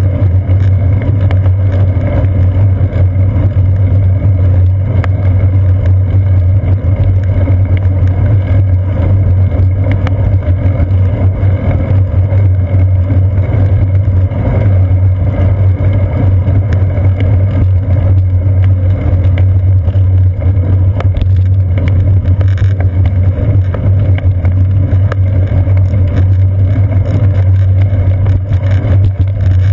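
Steady, loud low rumble of wind and road vibration picked up by a seat-post-mounted GoPro Hero 2 on a moving bicycle, with tyres rolling on a paved path.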